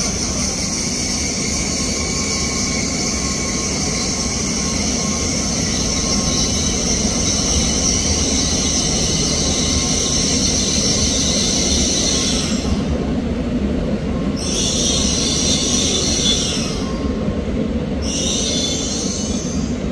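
Shinkansen train moving through the station at the platform, with a steady loud rumble and a high squeal that drops out twice briefly near the end.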